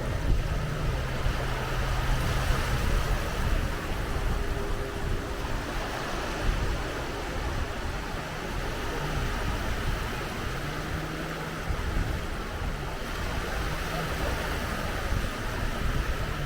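Sea surf washing on the shore at low tide, a steady wash of noise, with wind rumbling on the microphone. A faint low hum comes and goes over it.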